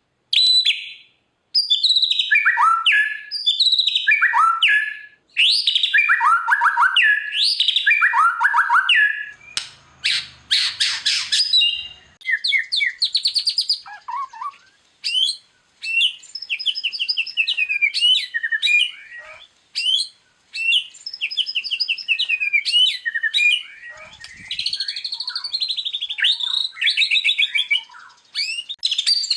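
White-rumped shama (murai batu) singing a long, varied song of whistles, slurred notes and rapid trills, with phrases imitated from other birds mixed in.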